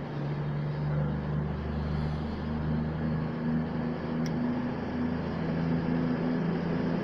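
Class 220 Voyager diesel multiple unit's underfloor diesel engines running steadily as the train pulls out of the platform.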